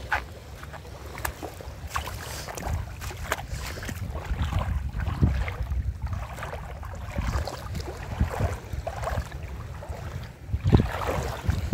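Gusty wind rumbling on the microphone, with small waves lapping and splashing over shallow reef rock. There is a louder gust near the end.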